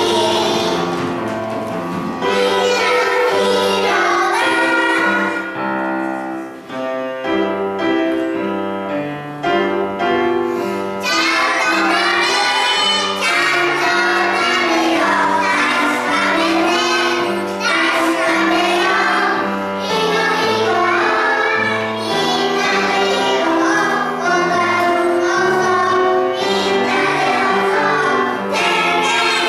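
The residential fire alarm PR song playing: children's voices singing over upbeat backing music, with a short stretch of held instrumental notes about six to ten seconds in.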